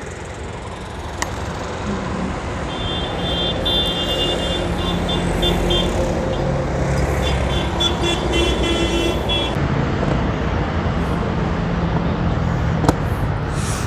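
Steady road traffic noise with the low hum of vehicle engines running, growing louder over the first few seconds. A faint, high, rapidly pulsing tone sounds through the middle stretch.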